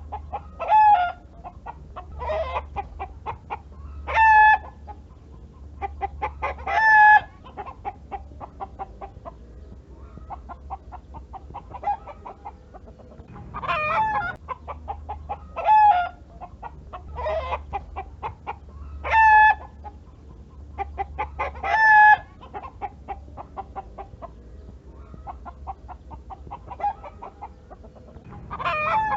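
Hen cackling: runs of quick clucks that build into loud, drawn-out squawks, repeating every few seconds.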